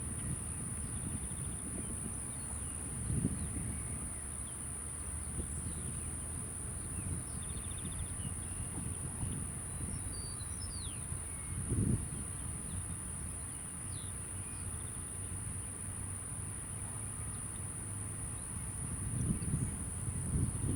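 Insects buzzing steadily on one high, even pitch, over a low rumble of wind on the microphone that swells in a few gusts. There are a few faint bird chirps.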